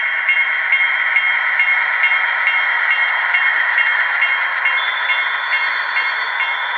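Model MP15 diesel switcher's sound decoder playing its engine sound through a small onboard speaker: a steady, tinny running sound with a regular tick a little over twice a second. A high steady tone joins about five seconds in.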